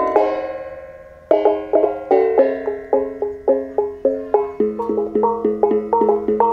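A row of small tuned metal gongs laid flat on a mat, struck with sticks in a quick melody of ringing notes, about three to four a second. Just after the start one stroke is left to ring and fade for about a second before the quick notes resume, and in the second half a low note recurs between the higher ones.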